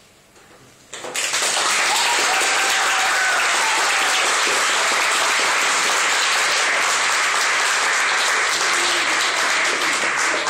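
Audience applauding, starting suddenly about a second in and then holding steady.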